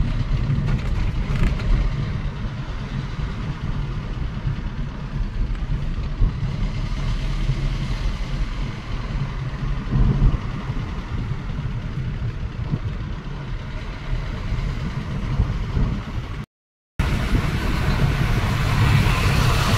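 A moving car's road noise heard from inside the cabin: a steady low rumble of engine and tyres with wind hiss above it. It drops out completely for about half a second near the end.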